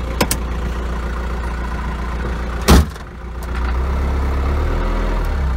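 Rover SD1 2400 SD Turbo's 2.4-litre four-cylinder turbodiesel running with a steady low drone. A sharp clunk comes about halfway through, then the drivetrain grows louder as the car pulls away under load. The freshly fitted LT77 gearbox sounds awful, like a bag of loose spanners, which the owner thinks is the gearbox input shaft.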